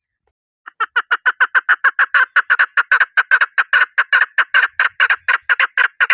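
Chukar partridge calling: a rapid, even series of short clucking 'chuk' notes, about six a second, starting just under a second in.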